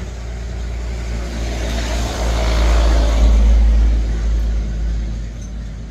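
A motor vehicle passing close by, its engine and road noise swelling to a peak about three seconds in and then fading.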